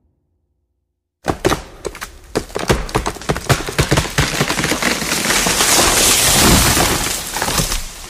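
Thunderclap starting sharply about a second in after silence: a rapid run of loud cracks that builds into a dense hiss and fades near the end.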